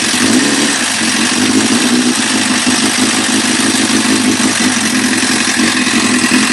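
Honda CBR600 PC25's inline-four engine idling steadily while hot, with the small hot-engine noise that worries its owner.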